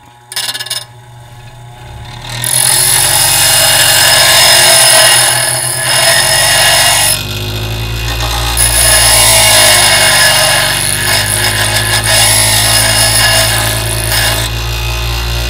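Bench grinder grinding the tip of a steel twist drill bit, shaping it into a brad-point (pilot) bit for wood. A brief touch about half a second in is followed by long stretches of harsh grinding over the steady hum of the motor. The grinding breaks off briefly past halfway and eases near the end.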